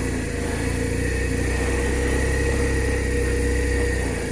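BMW R1200 RT's flat-twin boxer engine running steadily at low revs, its low hum easing off about four seconds in.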